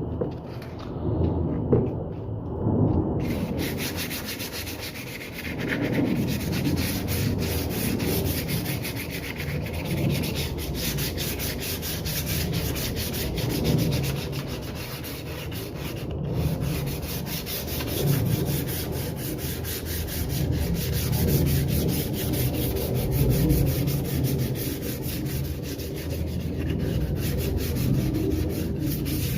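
Sandpaper being worked over a model boat hull: continuous scratchy rubbing that swells and eases every few seconds, turning brighter and hissier about three seconds in.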